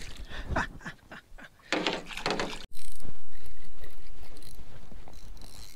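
Water splashing at the side of an aluminium jon boat as a small blue catfish goes back over the side. After a short break, a fishing reel is cranked with a loud, steady mechanical whirr that slowly fades.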